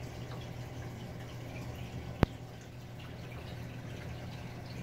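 Aquarium sponge filters bubbling: small drips and pops of water over a steady low hum. One sharp click comes about two seconds in.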